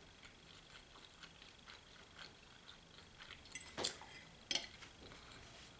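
Faint small clicks and ticks of someone eating and handling food and tableware, with two louder sharp clicks close together a little after halfway.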